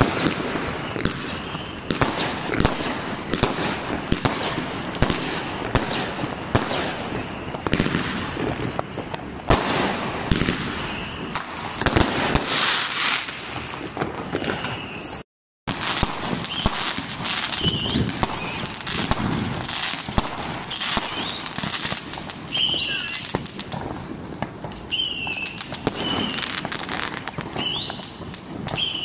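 New Year's Eve fireworks: a dense series of bangs and crackles from aerial bursts, cut off for a moment about halfway. The bangs and crackling then go on, with a few short high whistles in the last part.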